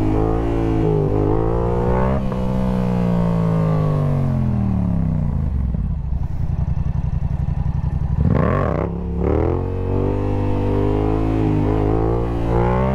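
Yamaha sportbike engine revving hard in first gear for a wheelie, the revs falling away as the throttle closes. It drops to a rough low idle, gives one quick throttle blip about two-thirds through, then climbs again near the end.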